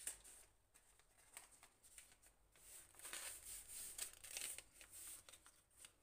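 Faint rustling and crinkling of baking paper as hands press and smooth it flat, a little louder from about three seconds in.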